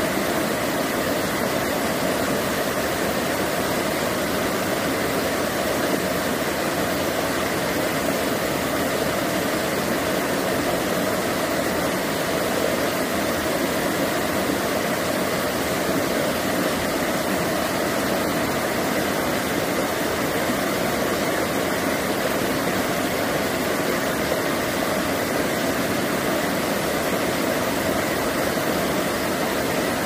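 Mountain stream rushing over boulders and spilling down a low rocky cascade: a steady, even rush of water.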